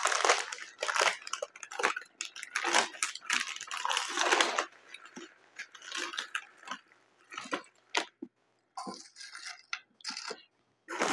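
A person chewing a mouthful of Subway sandwich with pickle: irregular wet crunching and smacking, busy for the first few seconds and then sparser. About nine seconds in, a short rustle as chips are handled from a crinkly chip bag.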